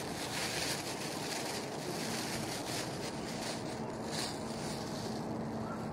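Thin plastic disposable gloves rustling and crinkling as they are pulled onto the hands, in short bursts over the first four seconds or so, against a steady outdoor wind hiss; a faint low steady hum joins about two seconds in.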